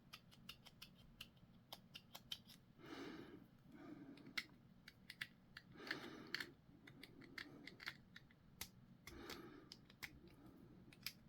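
Hobby clippers clicking and snipping as small model parts are cut and handled, with many short sharp clicks coming irregularly and a few soft rustles in between.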